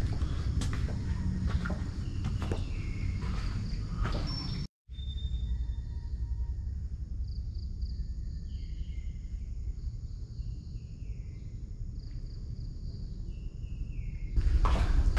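Steady low rumble of background noise with footsteps and small knocks as someone walks in. The sound cuts out for a moment about five seconds in; afterwards faint short high chirps sound over the rumble, and the louder noise returns near the end.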